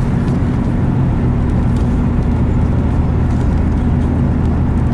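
Moving vehicle's engine and road noise: a steady, even low drone.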